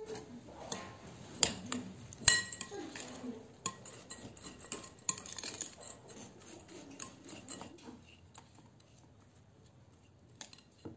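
Metal spoon stirring coarsely ground toasted almonds and icing sugar in a glass bowl: gritty scraping and light clinks against the glass, with one sharp ringing clink about two seconds in. The stirring grows quieter in the second half.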